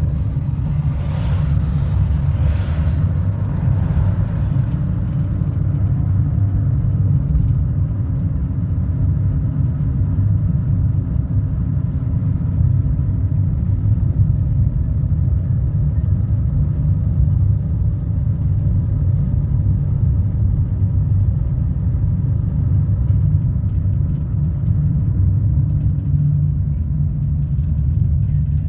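A car driving along a road: a steady low rumble of engine and tyre noise, with a brief rise in hiss during the first few seconds.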